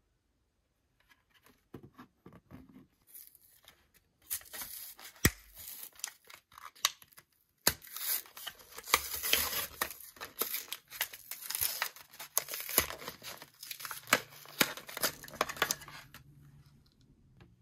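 Toy packaging being torn open and crinkled by hand, with scattered sharp clicks and snaps. Light handling noises at first, then steady tearing and crinkling from about three seconds in, stopping shortly before the end.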